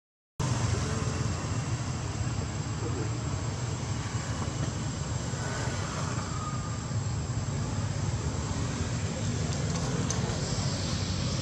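Steady outdoor background rumble and hiss, with a brief dropout to silence at the very start and a faint short falling tone about five and a half seconds in.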